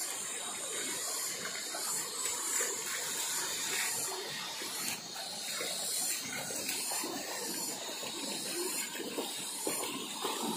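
Shallow river running over stones: a steady rushing hiss.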